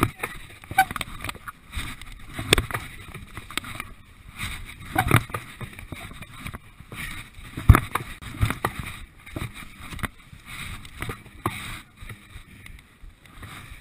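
Large truck tyre being flipped end over end on packed sand, a dull thump each time it lands, roughly every two and a half seconds, the loudest a little past the middle. Between the landings there is a rough, muffled rustle of movement close to the microphone.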